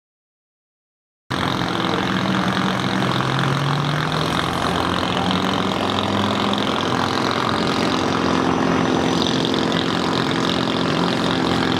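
Vehicle engines running steadily at low revs, coming in about a second in, with a brief rise in pitch a couple of seconds later.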